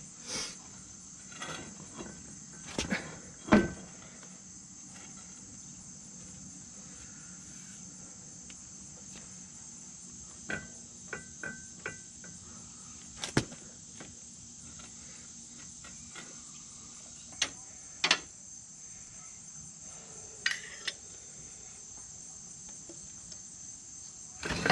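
Steady high chirring of insects throughout, with scattered knocks and clunks of heavy metal tractor parts being handled, the loudest about three and a half seconds in, and a few light rattles around halfway.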